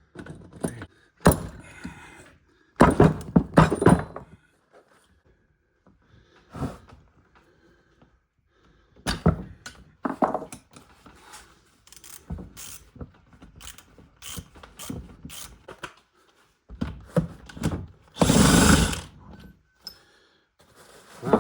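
Bolts being undone around the housing of an Eaton 12 hydrostatic transmission. Tool noise comes in short bursts, with the longest, loudest run about eighteen seconds in, mixed with knocks of metal parts on the workbench.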